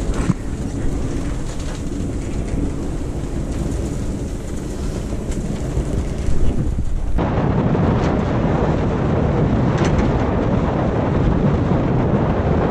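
Wind buffeting the camera microphone over the rush of sea water along a sailboat's hull under sail: a steady, loud, rumbling noise. About seven seconds in it changes abruptly to a fuller, harsher rush at a cut.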